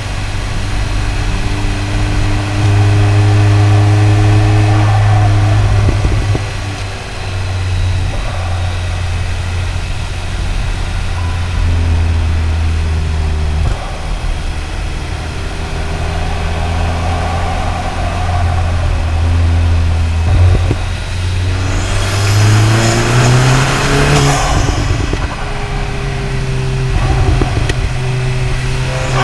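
Cupra Ateca's stage 1 tuned EA888 gen 3 2.0-litre turbocharged four-cylinder cruising at steady low revs, heard through the intake and exhaust. About 22 seconds in it accelerates: the engine note rises and a loud rush of intake and turbo air builds, then falls away about two seconds later.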